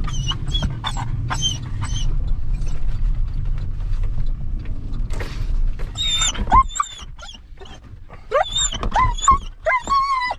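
Nervous dog whining and whimpering inside a pickup truck's cab. Short high whines come over the steady rumble of the moving truck, and the rumble drops away about six and a half seconds in. Near the end come louder, wavering whimpers.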